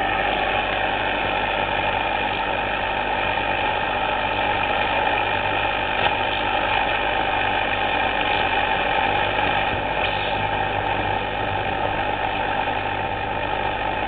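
Vintage valve radio giving off a steady hiss of static with a low hum underneath, no station coming through.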